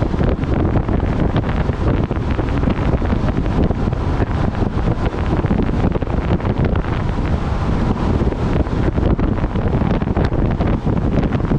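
Heavy wind buffeting the microphone of a camera riding on a vehicle at highway speed, a loud, steady low rush with road noise underneath.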